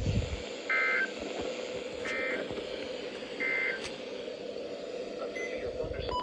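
A sharp thump at the very start, then three short, identical buzzy data bursts about 1.3 s apart from a NOAA Weather Radio, over a steady hum. They are the EAS/SAME end-of-message code, sent three times to close the severe thunderstorm warning that was just read out.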